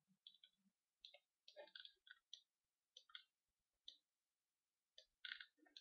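Faint, irregular clicking from a computer mouse, its buttons and scroll wheel, while a 3D view is rotated and zoomed, with near silence between the clicks.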